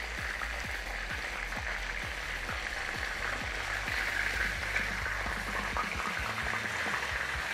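Seasoned fish pieces frying in hot cooking oil in a pan: a steady sizzle with many small crackles and pops.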